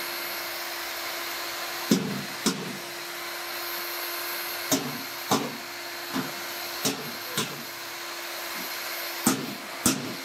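Handheld electric paddle mixer running steadily in a bucket of foam concrete, a constant motor hum with a hiss. About ten short sharp knocks are spread through it.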